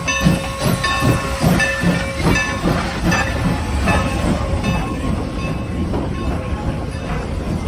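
Steam passenger train arriving at a station: rhythmic beats about two to three a second that fade out about four seconds in, over a steady high-pitched squeal and a hiss of steam.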